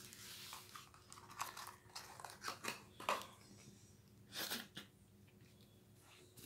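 Faint handling noise of packaging: a cardboard box and plastic being moved and crinkled, scattered short rustles and clicks, loudest about three and four and a half seconds in.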